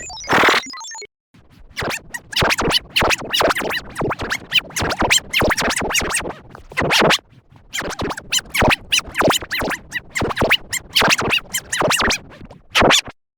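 Glitchy sound-effect edit: rapid chopped, stuttering cuts with record-scratch-like effects, played as music.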